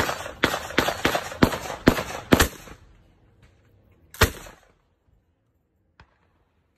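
M240 belt-fed machine gun in 7.62×51mm firing on full auto: a string of loud shots in quick succession for about two and a half seconds, then one more report a little after four seconds.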